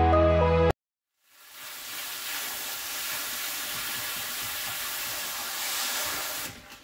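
Background music that cuts off under a second in. After a short pause comes a steady hiss of water spraying from a hose onto worm castings in a mesh strainer, which fades near the end.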